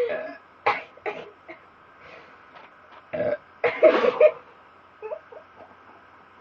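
A woman belching deliberately: several short burps, with the loudest and longest one about four seconds in.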